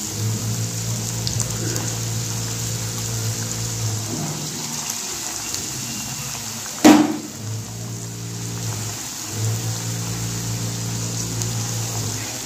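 Batter-coated chicken pieces deep-frying in hot vegetable oil in a kadai: a steady sizzle of bubbling oil. One sharp knock about seven seconds in.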